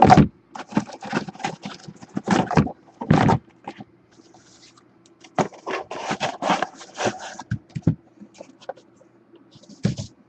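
Cardboard card boxes being handled and moved on a table: irregular taps, scrapes and rustling in short clusters, with a loud knock right at the start.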